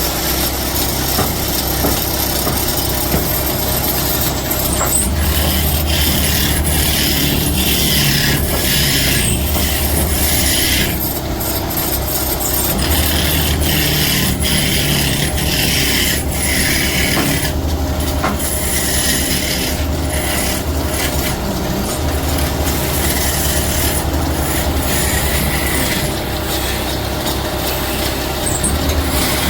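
A motor-driven woodworking machine running with a steady low hum, while a tool scrapes and cuts into wood in repeated bouts of a second or two each.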